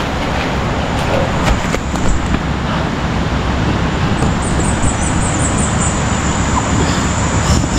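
Steady rushing noise of wind on the microphone and tall grass brushing past while walking through dense vegetation, with a faint, steady high-pitched tone throughout.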